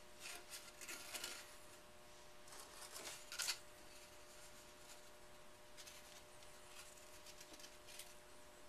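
Faint handling noises: a wooden scrap stick scraping and tapping against the inside of a cardboard rocket body tube as glue is spread inside it, a few scrapes in the first second and again around three seconds in, over a faint steady hum.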